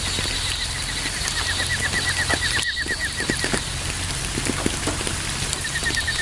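Steady rain falling, with scattered drips. Over it runs a rapid trill of short, evenly spaced chirps that stops a little past halfway and starts again near the end.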